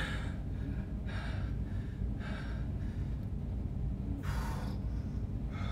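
A man breathing hard from exertion while holding a weighted split squat: short, noisy breaths about a second apart, the one a little past halfway longest and loudest.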